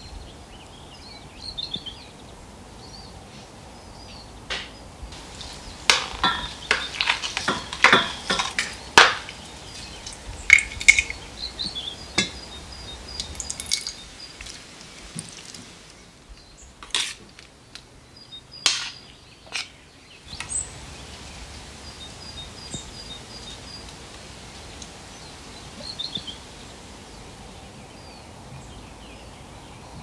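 Kitchen utensils and dishes clinking and tapping, in a quick run of sharp knocks about six to nine seconds in and a few scattered clinks after. Birds chirp faintly now and then.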